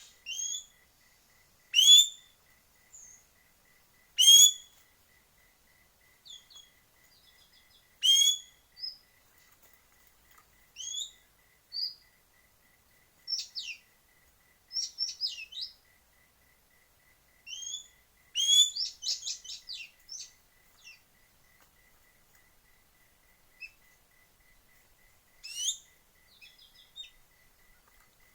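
Birds calling: loud, short, high calls that sweep upward, repeated every few seconds, with softer rapid chattering phrases between them. A faint, fast, even ticking runs underneath.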